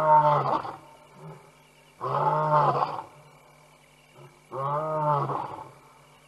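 Male lion roaring: three deep calls, each about a second long and about two seconds apart, each rising and then falling in pitch.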